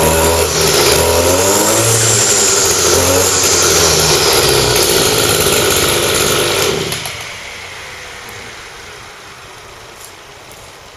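Two-stroke brush cutter engine revved up and down at high throttle, run hard to heat and burn out its muffler, then switched off about seven seconds in, leaving only a quiet tail.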